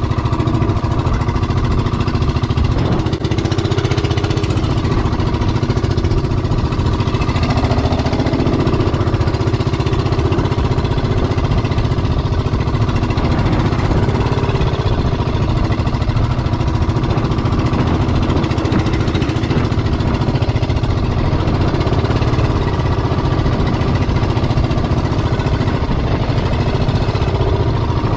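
Small outrigger fishing boat's engine running steadily under way, with a fast, even pulse.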